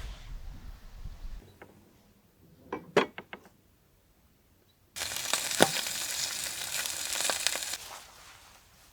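Food sizzling in a hot pan, starting suddenly about halfway through and dying away about three seconds later, after a few clicks and knocks of utensils.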